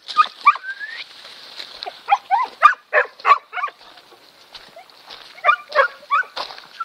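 Elhew pointer whining and yelping in short, high cries that bend up and down, coming in two runs: one from about two seconds in, the other from about five seconds in.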